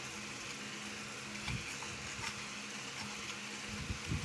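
Hand-cranked plastic pencil sharpener being turned, its blade shaving the pencil with a steady grinding and a few faint clicks.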